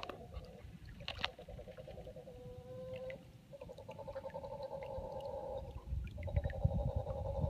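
Mantled howler monkeys giving long, rough, pulsing howls. They pause briefly about three seconds in, then come back stronger near the end. Two troops are howling aggressively at each other in a dispute.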